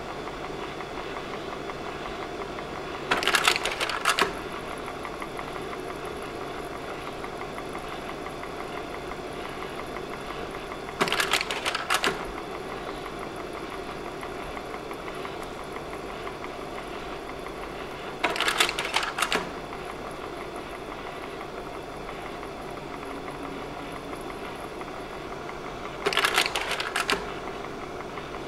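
Slide projector running steadily with its fan hum, while the slide-change mechanism clatters for about a second four times, roughly every seven to eight seconds.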